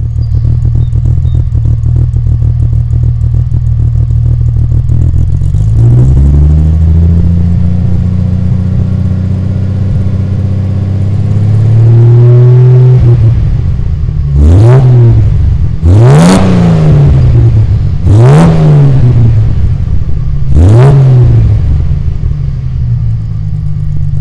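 1974 Triumph TR6's straight-six engine running through a Pacesetter exhaust, harsh and loud. It idles, is held at raised revs for a few seconds, then gets four quick throttle blips before settling back to idle.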